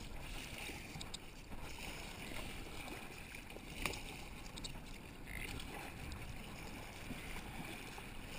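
Kayak paddle strokes, the double-bladed paddle dipping and splashing in choppy sea water in a steady rhythm. A single sharp click just under four seconds in.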